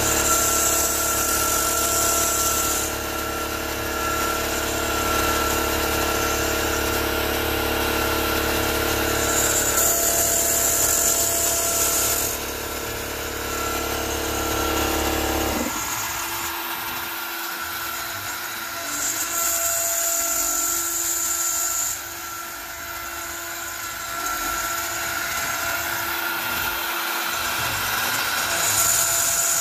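Onefinity CNC router's spindle running at about 18,000 rpm while a single-flute spiral upcut bit mills a circle through 3/8-inch cast acrylic: a steady machine whine with a sharper high cutting sound that swells and eases about every nine to ten seconds. A low hum underneath cuts off about halfway through.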